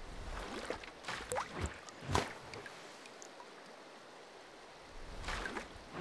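Splashing and bubbling water sound effects: a handful of quick splashes and rising bloops in the first two seconds or so, the loudest at about two seconds, then a quiet gap and more splashes near the end.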